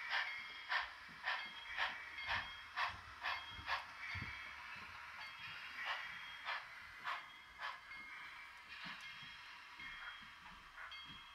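Model steam locomotive sound: slow exhaust chuffs about two a second over a steady hiss. The chuffs are strong for about four seconds, then softer and more spaced.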